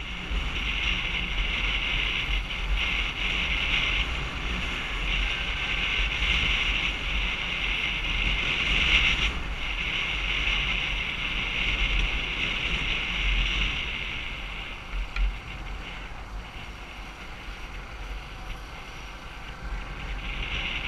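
Wind rushing over the microphone of a moving motorcycle, with the bike's engine and tyres running underneath. Two short knocks come about fifteen seconds in, and the wind eases a little after that.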